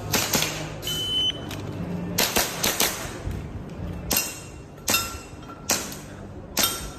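Airsoft pistol firing about ten sharp shots in uneven strings: a pair, then a quick string of four, then single shots roughly a second apart.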